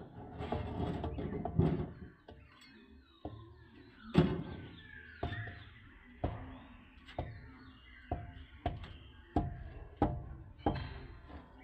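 Tool knocks on hollow clay bricks being tapped down into their mortar bed to level them, roughly one knock a second, about a dozen in all.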